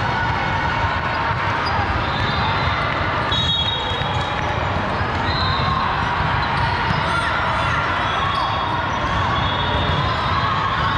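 Busy volleyball gym: steady crowd chatter, with volleyballs bouncing on the hard court floor.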